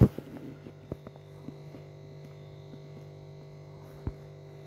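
A steady low electrical hum, with a few short clicks and taps from the handled phone; the loudest tap comes at the start and another about four seconds in.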